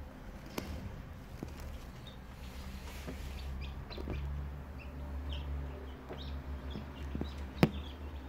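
Newly hatched chicks peeping in short, high cheeps over a low, steady hum, with a sharp click near the end.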